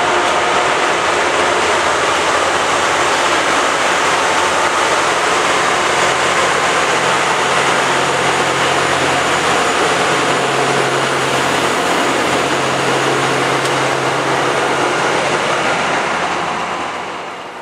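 Loram rail grinder grinding the rail as it passes: a loud, steady grinding hiss with an engine hum underneath, fading away near the end.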